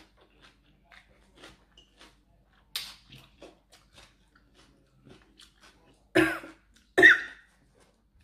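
Quiet chewing with small wet mouth clicks, then two hard coughs near the end: a woman choking on spicy cucumber salad.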